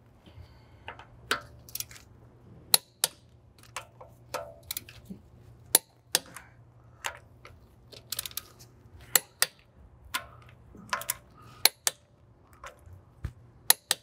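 Torque wrench and socket on the wheel's lug bolts, tightened to 100 ft-lb: a string of sharp metallic clicks and clinks, about one or two a second and sometimes in quick pairs, over a faint steady low hum.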